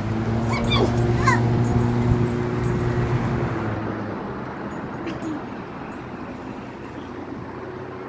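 Doberman Pinscher whining and yipping in play, several short high squeaky cries in the first second and a half, over a steady low hum that fades out about four seconds in.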